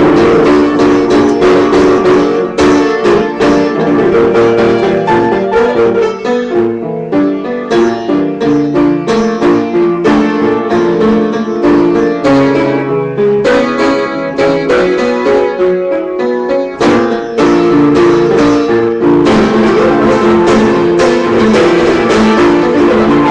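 Upright piano played with both hands: steady repeated chords in the middle register. A few seconds in it thins to a sparser, quieter passage with a moving bass line, and it returns to full chords after about 17 seconds.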